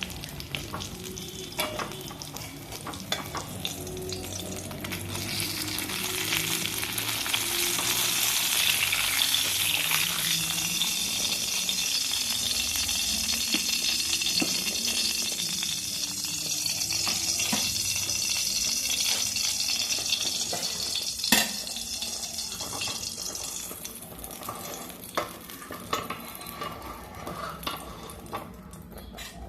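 Bánh xèo batter frying in hot oil in a pan, a loud hiss that swells a few seconds in and fades in the last few seconds. A sharp knock of the pan or utensil comes about two-thirds of the way through.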